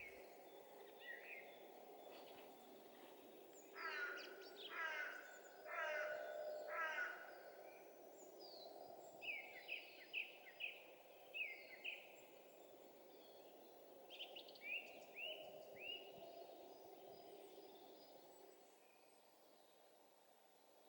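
Faint dawn birdsong in a forest: a run of four harsh, repeated calls about four seconds in, then several quick series of short sweeping chirps, over a steady low background hum.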